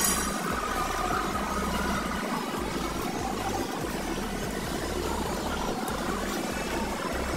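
Wire shopping cart rolling over a concrete floor, a steady low rumble with rattle from the wheels and basket.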